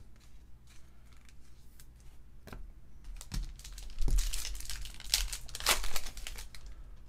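Foil wrapper of a 2019 Topps WWE Undisputed card pack being torn open by hand, crinkling and tearing. A few light handling clicks come first, then the crackle is loudest between about three and six seconds in.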